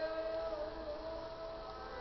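Ambient music from the installation's sound piece: several long, held tones layered together, gliding slowly in pitch.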